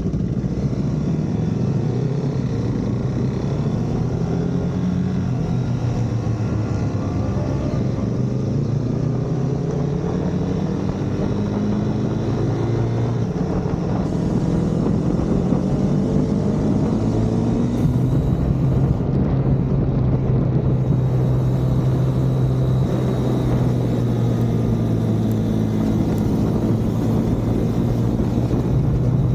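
Engine of a vehicle lapping a race track in the rain, running steadily with its revs rising and falling through gear changes, over a constant wet-road hiss.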